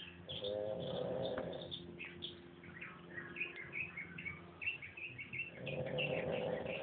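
Pekingese dog snoring: two long snores about five seconds apart, each lasting about a second and a half, over steady high chirping.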